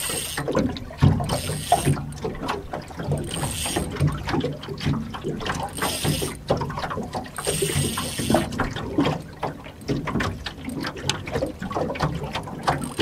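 Spinning reel being cranked in several short spurts while reeling in a hooked fish, over small knocks and water lapping around the boat.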